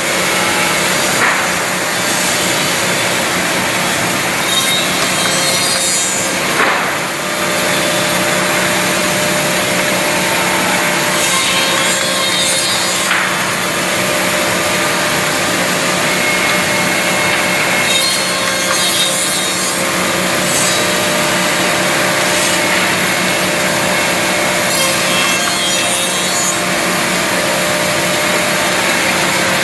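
Woodmaster WM-200B CNC double-end tenoning machine running, its spinning cutter heads milling tenons into the end of a wooden workpiece: a loud, steady whir of motors and wood cutting, with a few brief sharper noises.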